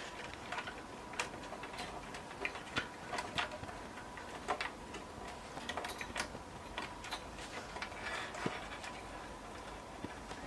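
Irregular small clicks and taps as a motherboard and its cables are worked loose inside a cramped desktop PC case.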